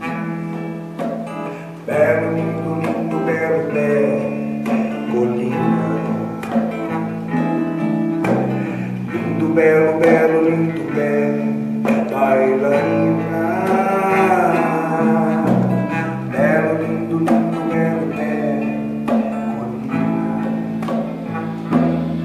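A small band playing: electric bass holding low notes under acoustic guitar, with hand drums tapping a steady rhythm.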